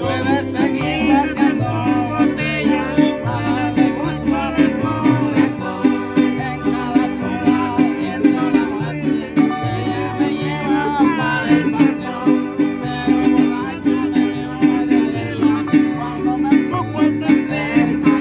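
Street band playing: piano accordion, violin and acoustic guitar over a large bass string instrument, with steady alternating bass notes under the melody.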